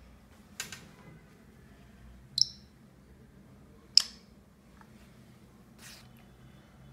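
Smartphone camera shutter sound: two sharp clicks about a second and a half apart as photos are taken, with fainter handling noises around them.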